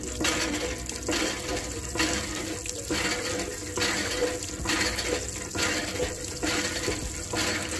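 Water from a miniature hand pump's spout splashing into a small steel bucket, gushing in pulses about once a second.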